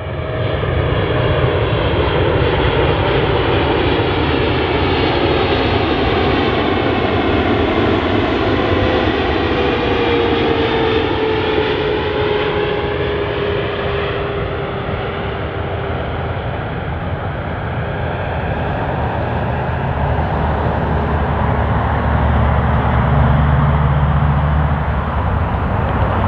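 Qatar Airways Boeing 777-300ER's GE90 jet engines on final approach: a steady loud jet roar with a whine that falls slowly in pitch as the plane passes. A deeper rumble swells near the end as it comes down to touchdown.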